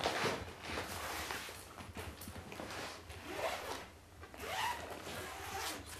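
Zipper of a soft fabric suitcase being drawn open around the lid.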